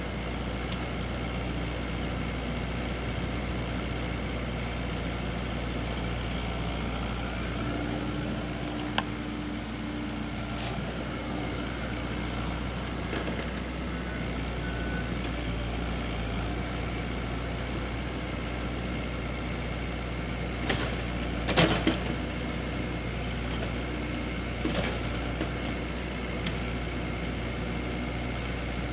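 Excavator's diesel engine running steadily, with a few sharp knocks of metal, the loudest a quick cluster about two-thirds of the way through.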